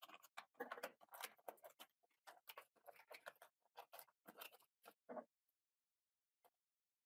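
Quick small clicks, taps and scrapes of hands handling an SSD and its packaging or laptop parts, stopping about five seconds in.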